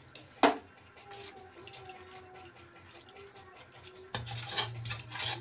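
A single sharp knock about half a second in, then from about four seconds in a metal spatula scraping and tapping on a steel tray as the thick coconut barfi mixture is pressed and spread flat.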